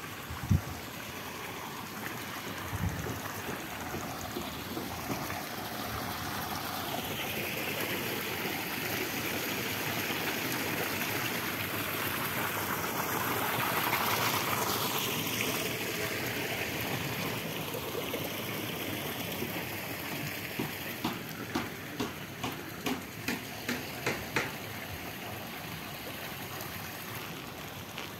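Water rushing and bubbling from the jets in stone-edged garden pools, a steady sound that swells to its loudest about halfway through and then fades. Near the end comes a run of about two light footsteps a second on stone paving.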